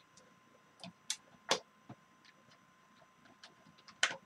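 A few light, sharp clicks and taps at irregular intervals, the loudest about four seconds in, as of small objects being handled.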